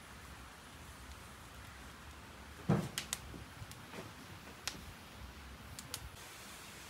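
Wood fire burning inside a clay tandoor oven: a dull thump near the middle, then a few sharp pops and crackles scattered through the rest.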